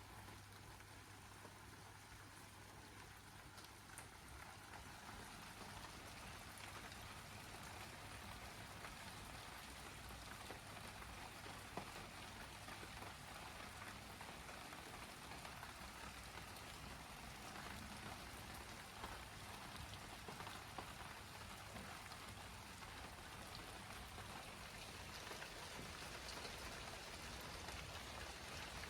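Steady rain falling, with individual drops ticking here and there; it grows gradually a little louder over the course.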